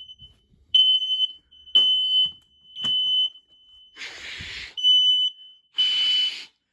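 Several home smoke alarms sounding together, a high piercing beep repeating about once a second. About four seconds in, three short bursts of hiss come about a second apart between the beeps.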